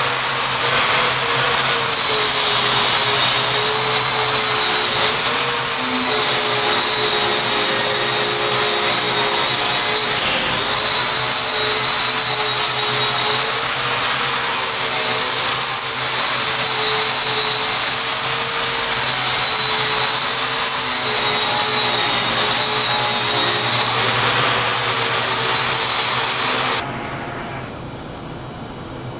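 MIG welding arc from a robot torch laying a weave bead: a steady, loud hiss with a faint wavering whine. It cuts off suddenly near the end as the arc stops.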